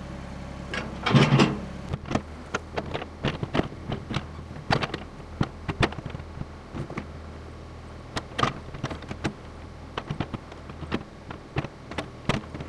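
Ford 555 backhoe engine idling steadily, with a series of irregular sharp knocks and clicks over it and a louder crunching burst about a second in.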